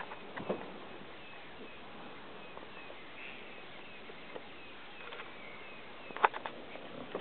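Elephants walking close by over dry bush litter: a few soft crunches early on, then a cluster of sharp snaps and cracks about six seconds in, the loudest sounds here, over a steady outdoor hiss with faint high bird chirps repeating throughout.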